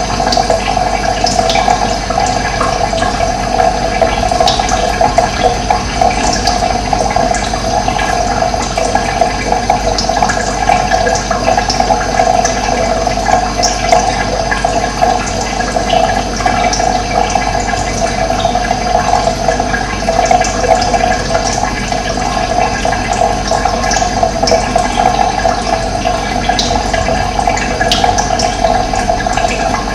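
Running water flowing steadily, a loud continuous rushing with no pauses.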